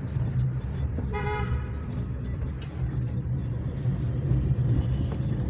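Steady engine and road rumble inside a moving car's cabin, with one short vehicle horn toot about a second in.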